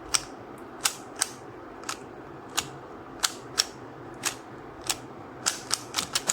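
A QiYi Sail 3x3 speed cube's layers being turned by hand, giving sharp separate clicks at an uneven pace, quicker toward the end.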